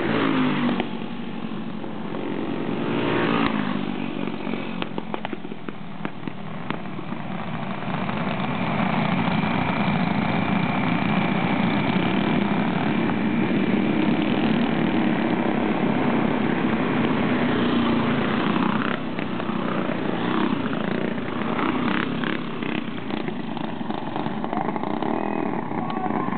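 A field of dirt-track racing karts with their small engines running hard around a clay oval, rising and falling in pitch as karts pass close by.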